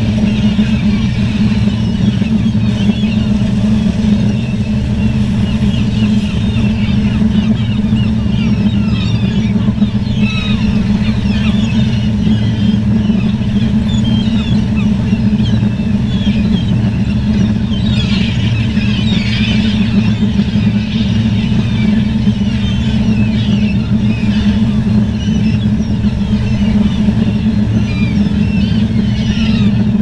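A large crowd of seagulls calling constantly, many short overlapping cries at once, thickest about ten seconds in and again around eighteen to twenty seconds. Underneath is a loud, steady low drone.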